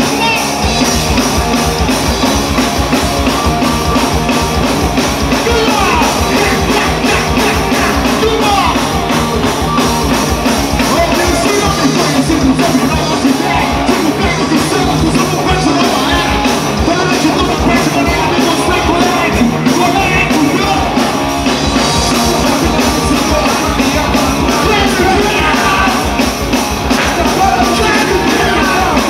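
Live rock band playing through a PA: electric guitar and drums, with a male vocalist singing over them.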